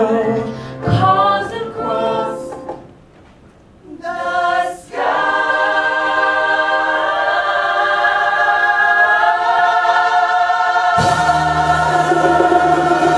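Concert choir singing: a few short sung phrases, a brief pause, then the voices hold one long sustained chord, with lower voices joining it near the end.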